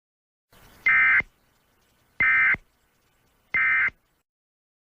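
Three short bursts of Emergency Alert System digital data tones, the SAME end-of-message code that closes an alert, each burst a fraction of a second long with about a second's pause between them.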